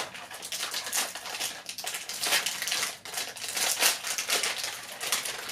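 Crinkly wrapper of a Cirkul flavor cartridge being torn open and crumpled by hand, in irregular rustles and crackles.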